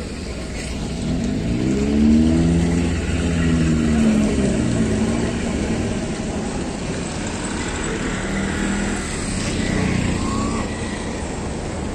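Cars and a three-wheeled mototaxi driving past close by. One engine rises and then falls in pitch as it passes, loudest about two seconds in, and a smaller engine swells again near the end.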